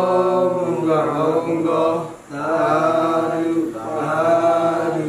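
A man chanting a Buddhist merit-sharing recitation in long, sustained, melodic phrases, with brief pauses for breath about two seconds in and again a little later.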